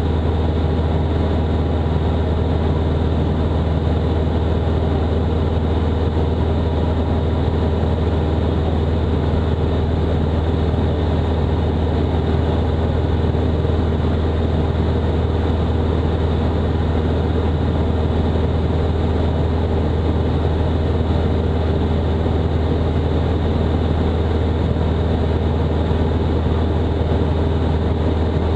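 Robin DR400-180's four-cylinder Lycoming engine and propeller droning steadily at cruise power, heard inside the cockpit.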